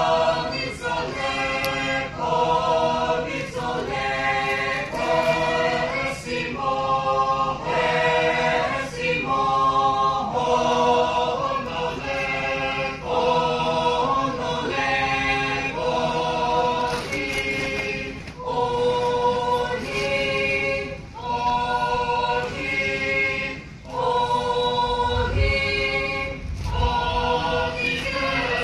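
Angami Naga folk song sung in chorus by a group of men and women without instruments, in repeated phrases of a second or so with short gaps between them.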